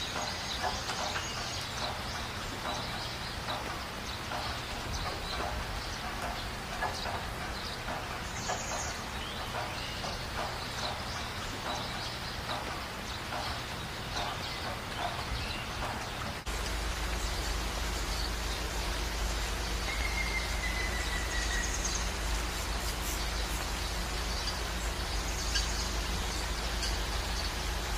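Outdoor ambience: small birds chirping over a low background. About halfway through, the background changes abruptly to a steadier low rumble, and a single short falling whistle-like call comes a few seconds later.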